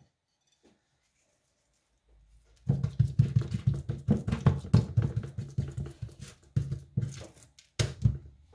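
Salt being put onto a raw steak: after a quiet start, a quick run of short rattling strokes begins about two and a half seconds in and stops shortly before the end.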